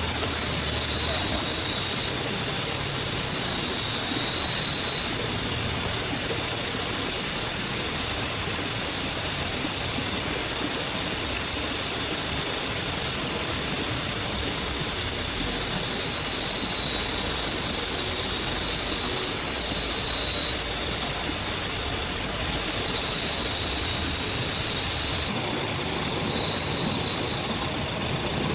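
Steady heavy rain, with a high rhythmic pulsing running over it; the sound shifts abruptly about 25 seconds in.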